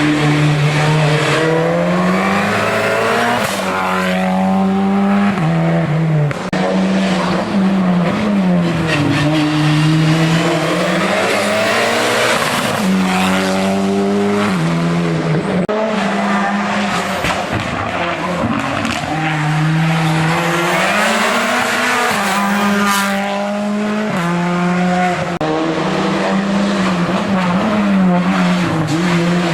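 Hill-climb race car's engine at full throttle, its revs climbing and dropping back again and again as it shifts through the gears.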